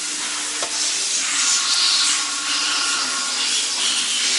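Steady hissing noise with a faint underlying hum, with no sudden knocks.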